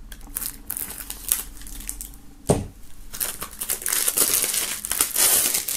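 Plastic shrink-wrap on a CD jewel case being slit with a knife and peeled off, crackling and crinkling, with a single knock about two and a half seconds in and the crinkling densest in the second half.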